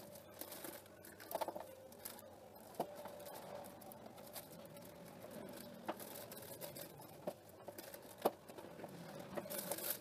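Soft handling noises: a clear plastic piping bag crinkling as it is handled with whipped cream in it, with scattered light clicks and taps over a faint steady hum.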